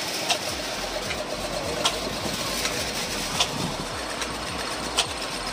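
Dragon Train amusement ride running: a steady mechanical rumble with a sharp click about every second and a half.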